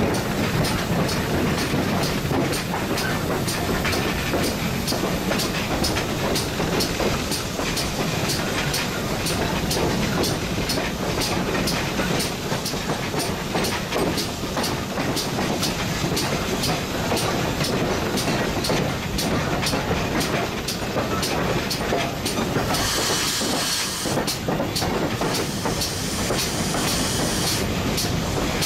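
GWR Hall class two-cylinder 4-6-0 steam locomotive under way, heard from the footplate: a steady running noise with a fast, regular beat. A loud hiss comes in about 23 seconds in for a second or two and again near the end.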